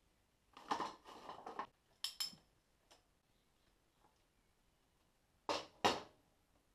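Metal hand tools clinking and clattering as a socket wrench is picked up and worked on the motorcycle's footrest nut: a short clatter, two sharp clicks, then two louder knocks a moment apart near the end.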